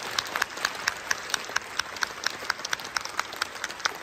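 Audience applauding, with separate hand claps coming several times a second.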